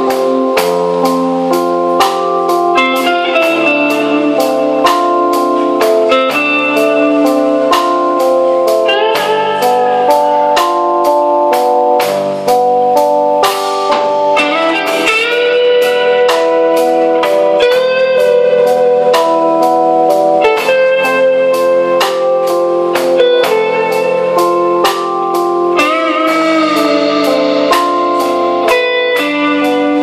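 Live instrumental rock band: a lead Fender electric guitar plays a slow melody of long sustained notes with pitch bends, over rhythm guitar, bass guitar and a drum kit keeping a steady beat.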